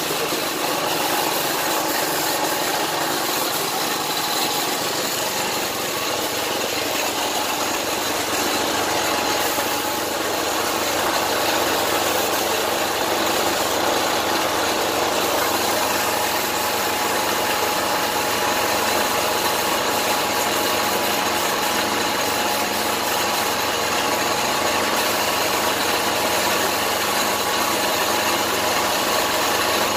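Steady hiss of a gravity-cup air spray gun spraying paint onto a motorcycle frame, over the even running of an air compressor.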